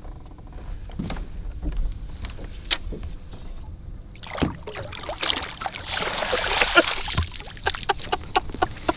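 Lake water splashing as a hooked largemouth bass is brought to the boat and scooped into a landing net, the heaviest splashing lasting about three seconds from about four seconds in. Scattered knocks and clicks of gear against the boat hull come before and after it.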